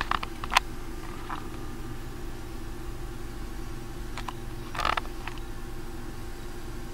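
Steady low electrical hum from the test bench equipment, made of several fixed low tones. A few light clicks come in the first half-second, and a short louder scuff about five seconds in, as the probe and clip leads on the potentiometer are handled.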